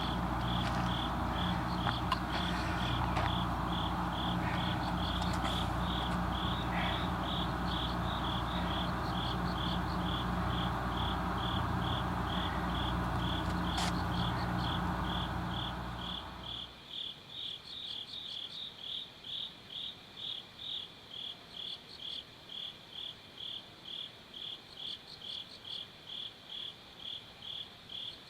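Crickets chirping in an even rhythm, about two chirps a second. For the first half a steady low mechanical hum, like a motor running, sounds under them and cuts off about sixteen seconds in, leaving the crickets alone.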